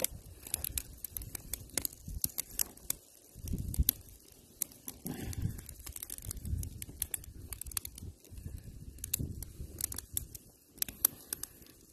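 Freshly lit wood fire in a steel fire pit crackling, with many sharp irregular pops and snaps as the split kindling catches. Low rumbles come and go underneath.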